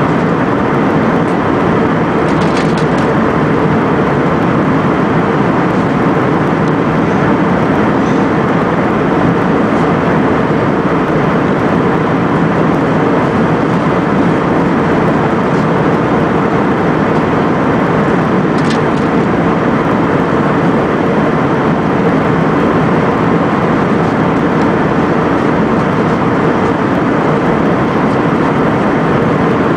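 Steady cabin noise of an Airbus A320-family jet airliner in cruise: the even rush of engines and airflow heard from inside the passenger cabin, with a faint low hum running under it.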